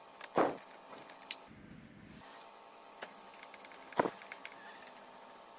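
Scattered clicks and light knocks of small parts and a screwdriver being handled while a preamplifier board is fitted back onto the subwoofer's front panel; two clicks, about half a second in and near four seconds, are louder than the rest.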